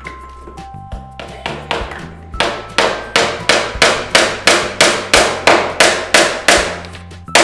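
A run of hard, evenly spaced knocks, about three a second, faint at first and loud from about two and a half seconds in, each with a short ringing tail.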